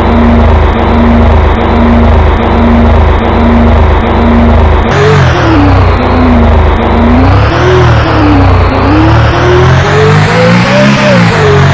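1000cc motorcycle engine, loud: at first running with an even pulse a little faster than once a second, then about five seconds in the sound changes to revving, the pitch rising and falling a few times and climbing highest near the end.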